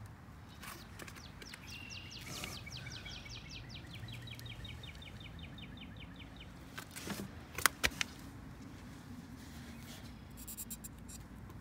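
A few sharp clicks a little after halfway: a flathead screwdriver prying at a wheel's plastic centre cap. Before that, a bird sings one long, fast, even trill lasting several seconds.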